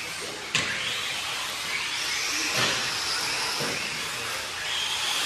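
1/8-scale electric RC buggies racing on a dirt track, their motors whining and rising and falling with the throttle. There is a sharp clack about half a second in and a couple of duller thumps later on.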